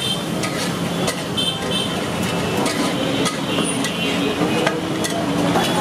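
Street-food stall noise: a metal spatula clicking and scraping irregularly on a large iron griddle (tawa) while frying masala, over a steady background hum of traffic and voices.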